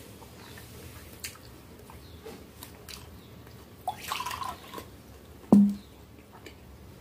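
Sparkling water poured briefly into a glass, a little under a second, followed by a single loud knock with a short low ring as something is set down hard on the table. Soft mouth clicks from chewing are scattered before it.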